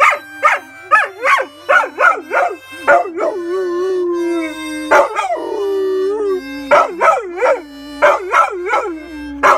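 Yellow Labrador retriever howling along to a harmonica: a run of short, wavering howls, then longer drawn-out howls, over the harmonica's steady reedy chords.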